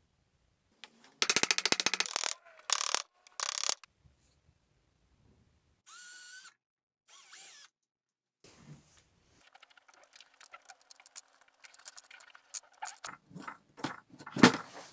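Hand work on a washing machine motor's shaft as a plywood pulley is fastened to it. First comes a short burst of rapid ratchet-like clicking with two shorter clattering bursts. Then small metal clicks and scrapes as a retaining clip is fitted on the shaft end, with one sharp click near the end.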